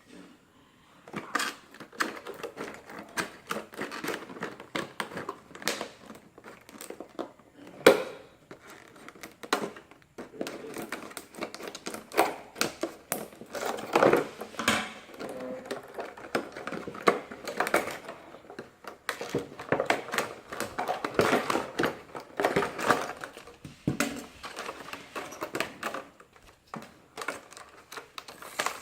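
Unpacking a Yale lever door lock set: irregular clicking and clacking of the lock parts and packaging being handled, with one sharper knock about eight seconds in.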